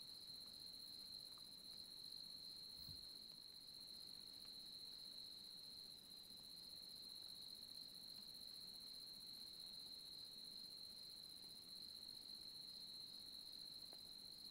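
Faint crickets trilling steadily in one continuous high note, with a fainter pulsing trill just above it.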